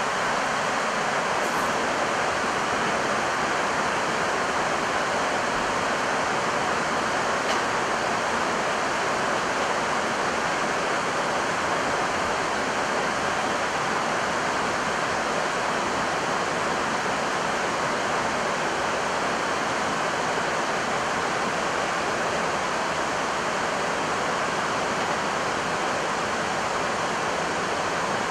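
Steady rushing noise inside an Airbus A320 cockpit in flight: airflow over the nose and windscreen mixed with the air-conditioning, even and unchanging.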